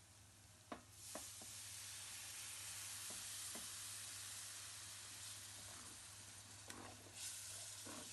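Food sizzling in a hot frying pan. The sizzle swells up about a second in and again near the end, with a few light clicks and taps of a utensil against the pan.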